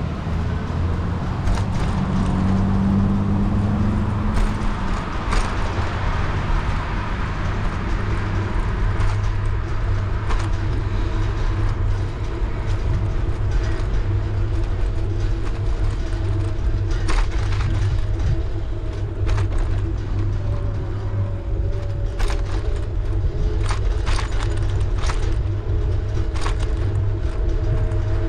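Steady rumble of wind and road noise from riding a bicycle, with car traffic nearby. Scattered sharp clicks and rattles come in during the second half.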